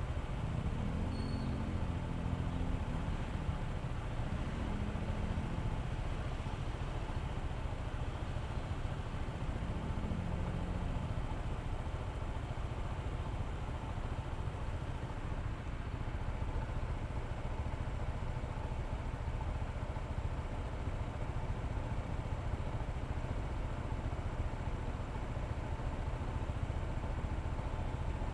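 Honda ADV160 scooter's single-cylinder engine running steadily while riding, under a constant low rumble of road and wind noise. There are a couple of brief faint tones in the first ten seconds or so.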